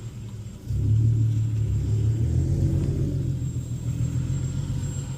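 A car's engine under way with a low rumbling drone; about two-thirds of a second in it suddenly gets louder as the car accelerates, then holds a steady note.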